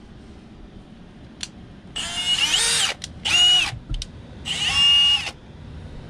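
Power drill run in three short bursts, each whine winding up in pitch, holding, then winding down as the trigger is released.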